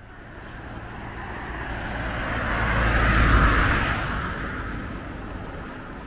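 A car driving past, its noise rising to a peak about three seconds in and then fading away.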